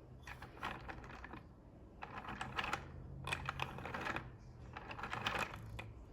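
Plastic gears and rack-and-pinion teeth in a hand-worked toy mechanism clicking and rattling, in about four bursts of rapid clicks as the arms are worked back and forth.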